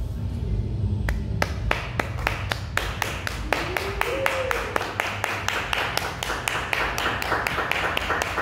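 Audience applause: scattered claps begin about a second in and build into steady clapping, over a low rumble.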